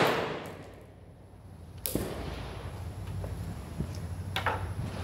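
The echo of a 5.56 mm M16A2-clone AR-15 rifle shot dies away under a covered firing line. Two fainter sharp cracks follow, one about two seconds in and one near the end.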